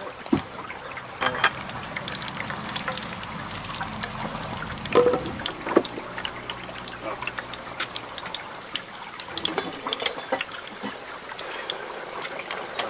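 Shallow stream trickling steadily over rocks, with sharp metal clanks as the grill grate is lifted off a folding Firebox stove about a second in and a frying pan is set down on it around five seconds in.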